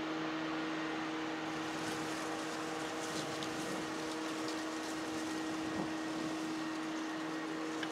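Steady machine hum: one constant low tone with fainter overtones over an even wash of background noise.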